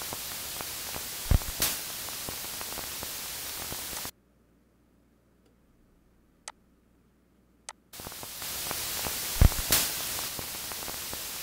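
Steady hiss of a noisy voice recording, with a low thump followed by a sharp click about a second in, and the same pair again near the end. In the middle the hiss cuts out to near silence for about four seconds, broken by two faint clicks.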